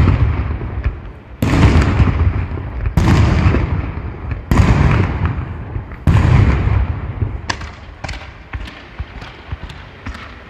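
Fireworks bursting: four loud booms about a second and a half apart, each rolling away in a long rumble, followed by a quicker run of smaller sharp cracks that fade near the end.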